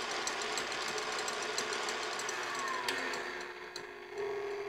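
KitchenAid tilt-head stand mixer running on high, its wire whisk beating egg whites and sugar into meringue toward stiff peaks. It is very loud, with a fast ticking rattle over the motor hum. About three seconds in the sound dips briefly, then comes back as a steadier hum.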